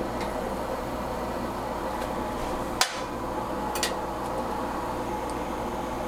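Steady low hum and hiss, broken by a sharp metallic click about three seconds in and a lighter click a second later: kitchen utensils (tongs, then a spatula) knocking against a stainless steel pot of near-boiling water.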